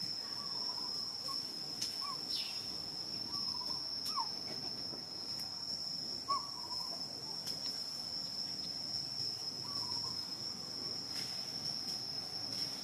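A steady, high-pitched insect drone of crickets or cicadas, with a few short faint chirps scattered through it.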